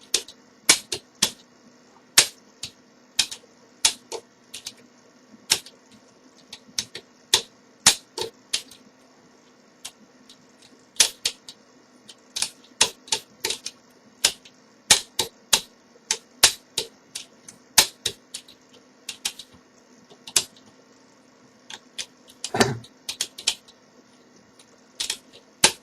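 Irregular metallic clicking and ticking from picking a five-lever mortice lock: the pick and overlifting wire tick against the steel levers as they are lifted and drop back around the anti-pick notches, with the lock not yet open. One slightly heavier knock comes near the end.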